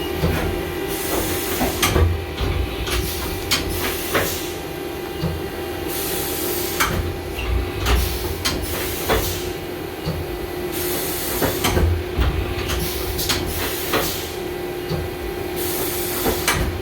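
Haas VF-2SS vertical machining center running a series of automatic tool changes: repeated bursts of compressed-air hiss every couple of seconds, with sharp clunks and knocks of the tool changer and spindle, over a steady machine hum.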